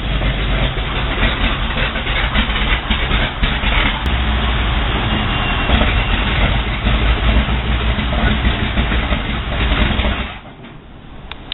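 A Sherman tank's freshly rebuilt Continental R975 radial engine running as the tank rolls slowly past on its tracks, a loud steady drone with heavy low rumble. About ten seconds in the sound drops away sharply, leaving only a faint residue.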